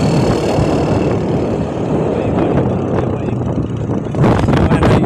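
Motorcycle running at road speed, its engine noise mixed with wind rushing over the microphone, which grows louder and gustier about four seconds in.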